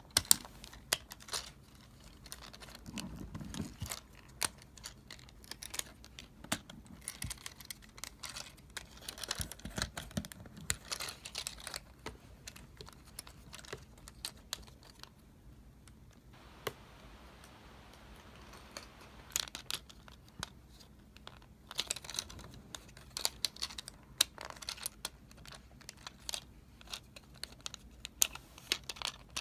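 Plastic parts of a Transformers The Last Knight Deluxe Class Crosshairs figure clicking and snapping as they are folded and pushed into car mode by hand: a run of small, irregular clicks, with a quieter spell about halfway through.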